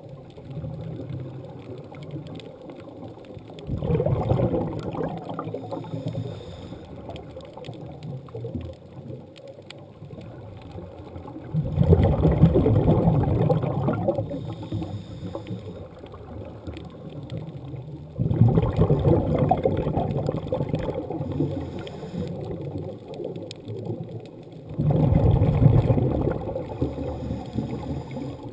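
Scuba divers breathing through regulators underwater: four bursts of exhaled bubbles about every six to seven seconds, each lasting two to three seconds, with a quieter hiss between.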